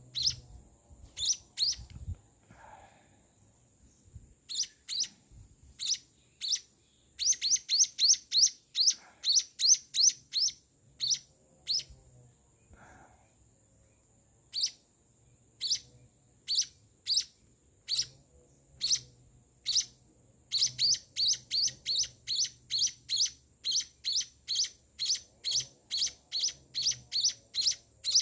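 A week-old munia (emprit) nestling giving high, rapid begging chirps while being hand-fed. The chirps come in quick bouts broken by short pauses, then settle into a steady run of about two a second in the second half.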